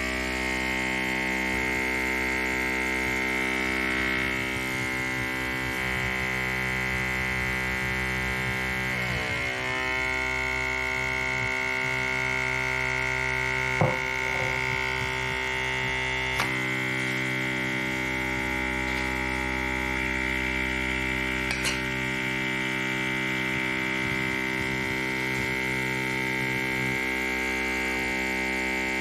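Small electric air pump running with a steady, even hum for a pneumatic robot's vacuum suction cup, with a few sharp clicks from the robot's mechanism, the loudest about halfway through.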